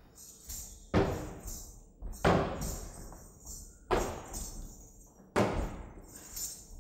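A two-headed barrel drum beaten with four heavy strokes about a second and a half apart, each ringing out and dying away, with a lighter jingling between the strokes.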